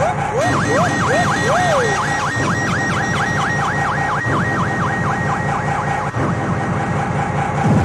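Hardcore techno from a live rave DJ set: a pounding kick drum under a siren-like riff. A few rising wails sound in the first two seconds, then a fast run of falling siren sweeps repeats about three times a second over held high tones.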